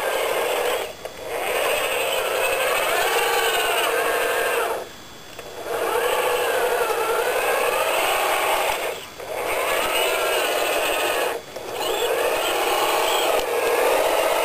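Electric drive motor and gearbox of a radio-controlled scale MAN TGA 6x6 truck whining under load in mud, the pitch rising and falling with the throttle. The whine cuts out briefly four times, the longest stop about five seconds in.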